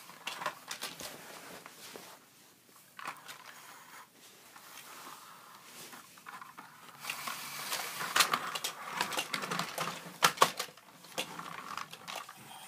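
Plastic Hot Wheels Blasting Rig toy truck loaded with die-cast cars being handled: scattered clicks and rattles, a busier stretch of clattering in the second half, and one sharp click about two seconds before the end.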